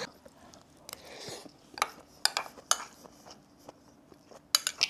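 Cutlery clinking against a dish, with a short soft scrape about a second in and a quick run of clinks near the end, as rice and stir-fried pork are mixed and eaten.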